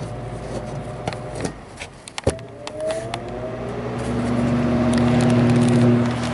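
A vintage Brentwood box fan's stiff switch clicks sharply about two seconds in. The fan's dry, unoiled motor then starts and spins up, its hum rising in pitch and growing louder.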